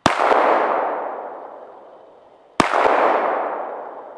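Two shots from a Sig Sauer P226 pistol, about two and a half seconds apart, each a sharp crack with a long fading tail and a smaller click just after it.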